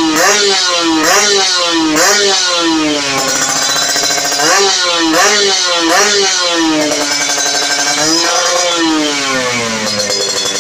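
Kawasaki Ninja 150R two-stroke single-cylinder engine free-revving through a Silver Fox aftermarket exhaust. The throttle is blipped over and over in quick rises and falls, about one a second at first and faster in the middle, then a longer rev near the end that falls back toward idle.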